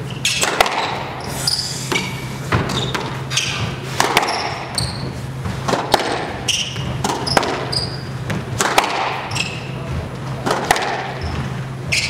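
Squash rally: the ball is struck hard by rackets and smacks against the walls in a quick irregular series, with short high sneaker squeaks on the hardwood court between the hits. A steady low hum runs underneath.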